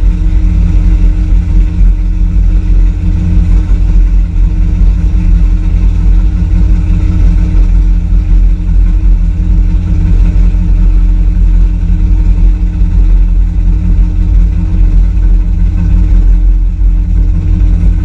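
Chevrolet mud truck's LS V8 idling steadily and loudly, heard from inside the stripped cab.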